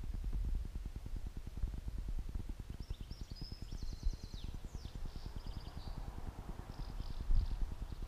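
Wind buffeting the microphone as a steady low rumble. A small bird sings short chirps and trills from about three seconds in, and again near the end.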